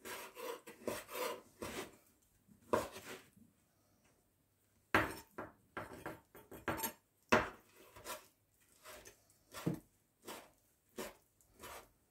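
Chef's knife cutting sun-dried tomatoes into small pieces on a cutting board: irregular knocks of the blade striking the board, with a pause of over a second about three seconds in.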